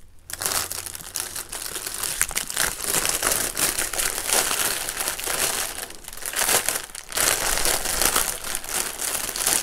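Clear plastic bags of diamond painting drills being handled and crumpled: continuous crinkling that eases briefly twice, about six and seven seconds in.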